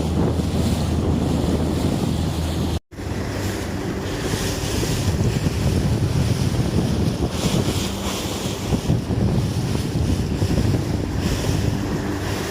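Small fishing boat under way at sea: a steady low engine hum under wind buffeting the microphone and the wash of water. The sound cuts out for an instant about three seconds in, then carries on unchanged.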